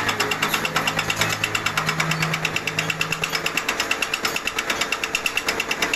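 Milling machine cutting a keyway, a rapid, even rhythmic clatter with a low hum that fades out about halfway through.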